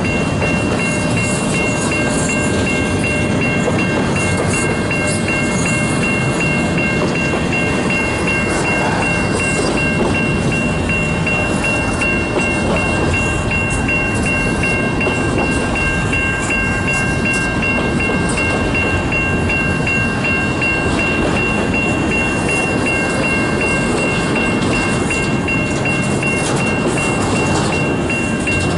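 CN local freight train rolling steadily through a grade crossing, with the crossing's warning bell ringing in a rapid, even repeat the whole time.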